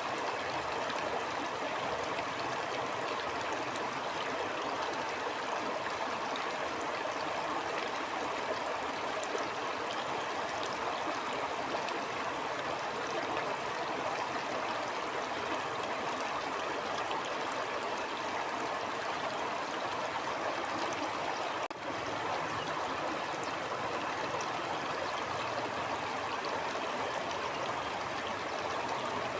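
Stream water flowing in a steady, even rush, with a brief momentary dip in level about three-quarters of the way through.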